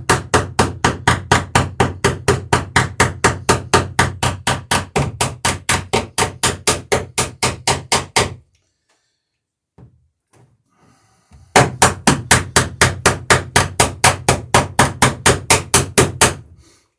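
Rapid, even hammer blows, about five a second, riveting a wooden dory's planking. The hammering pauses for about three seconds about halfway through, with a few faint knocks, then resumes and stops shortly before the end.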